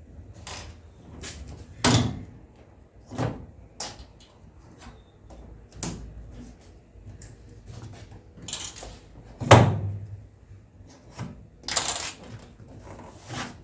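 Irregular knocks and clunks of hands working on the gap seal and tailgate, with louder knocks about two seconds in and again about nine and a half seconds in, and a scraping rustle near the end.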